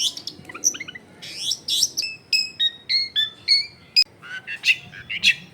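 Long-tailed shrike (cendet) singing: a fast string of varied short chirps and whistles, several a second, some sliding upward in pitch.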